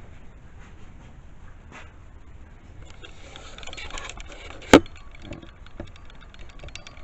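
Camera handling noise as the camera is picked up and turned around, with rustling and small knocks from about three seconds in and one sharp knock just before the five-second mark.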